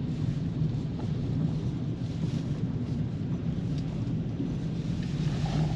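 Steady low rumble of a vehicle running, with a constant low hum and no change in pitch.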